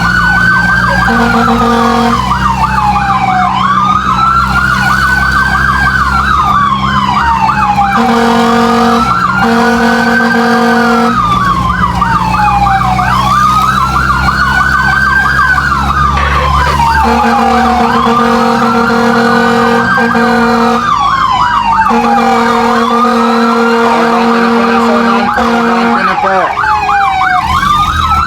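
Fire truck siren sounding continuously: a slow wail rising and falling about every four seconds, layered with a fast yelping warble. A horn cuts in with several long steady blasts, and engine rumble runs underneath.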